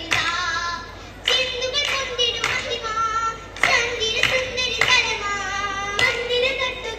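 Oppana: a group of voices singing a Mappila-style song in long held notes, with the dancers' hand claps in unison on the beat, about every half second to second, and a short lull just before a second in.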